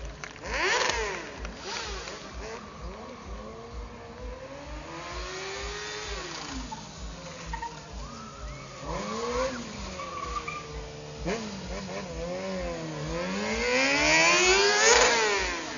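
Stunt sport-bike engines revving up and down over and over. A loud rev comes about half a second in, and near the end a bike passes close, its engine note climbing to a peak and then dropping.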